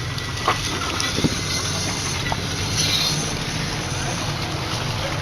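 Off-road vehicle engine running steadily, with two sharp knocks about half a second and just over a second in.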